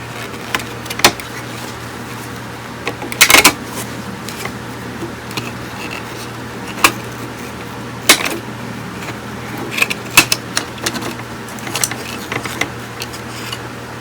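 Scattered sharp clicks and clinks of tools and small parts being handled on a workbench, the loudest cluster about three seconds in, over a steady low hum.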